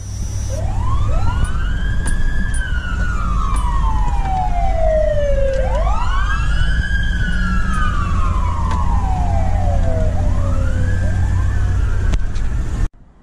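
Two emergency-vehicle sirens on a slow wail, slightly out of step, each sweep rising quickly and then falling slowly, repeating about every four to five seconds. Underneath runs the steady rumble of the engine and road noise, heard from inside a vehicle's cab. The sound cuts off suddenly near the end.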